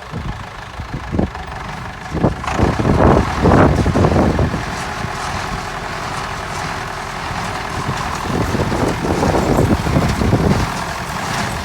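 1971 David Brown 990 tractor's four-cylinder diesel running under load while it drives a New Holland 268 square baler through the hay. Louder noisy surges come about three seconds in and again near ten seconds.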